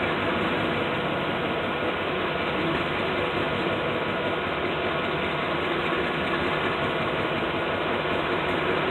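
Gravel hopper cars rolling slowly along the track, with a steady mechanical noise from their wheels and running gear.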